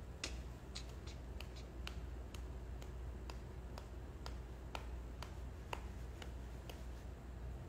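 A run of light, sharp clicks or taps, uneven but about two a second, over a low steady hum.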